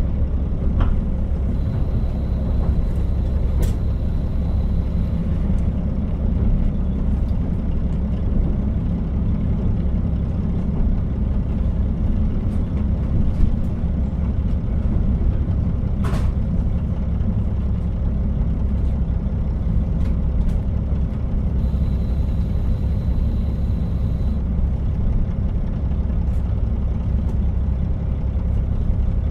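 JR Hokkaido KiHa 40 diesel railcar on the move: a steady low drone of the diesel engine and wheels on the rails, with a few sharp clicks from the track and twice a faint high tone for a few seconds.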